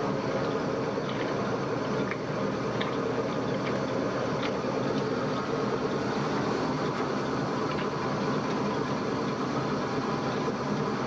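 Vintage automatic washing machine running: a steady motor and drive hum with water churning, and a few faint light ticks.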